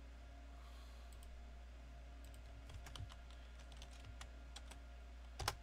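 Typing on a computer keyboard: scattered faint keystrokes over a steady low hum, with one louder click near the end.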